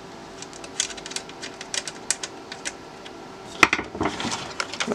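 Scattered small clicks and taps from a rotary phone being worked on by hand, as its base screws come out, with a louder knock about three and a half seconds in.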